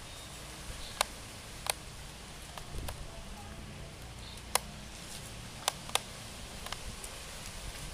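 Screwdriver turning small screws into the metal frame of a Sougayilang Thunder LS40R overhead fishing reel, with handling of the reel: a handful of sharp little clicks and taps at irregular intervals over a low steady background noise.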